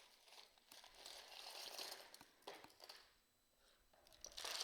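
Faint rustling and crinkling as a handful of jewelry is pulled out of a box, with a short pause before a last brief rustle near the end.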